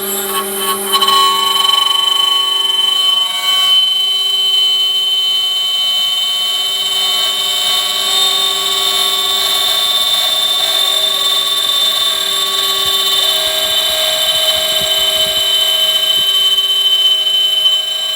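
Metal lathe taking a threading cut with its leadscrew driven by a microstepping stepper motor: a steady high-pitched whine made of several tones, with a lower tone joining about two-thirds of the way through.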